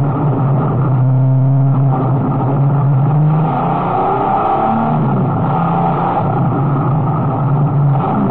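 A Dodge TC 4000 race car's engine running hard at racing speed, heard from on board the car. The note holds steady for a few seconds, then shifts pitch around the middle before settling again.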